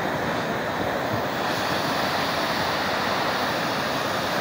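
Muddy floodwater of a river in spate rushing past in a steady torrent, a continuous hissing rush with no breaks.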